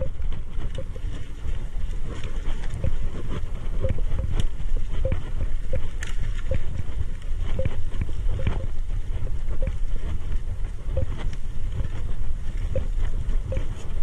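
Mountain bike riding a dirt single-track trail: a steady low rumble of tyres and wind on the microphone, with frequent clicks and rattles from the bike jolting over bumps.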